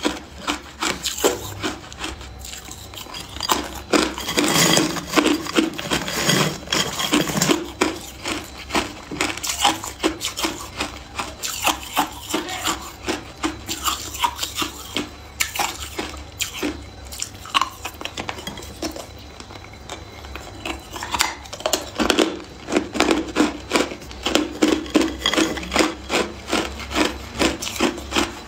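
Hard ice being bitten and crunched between the teeth, close up: a steady stream of sharp cracks and grinding crunches. The crunching is densest about four seconds in and again over the last quarter, with sparser cracks between.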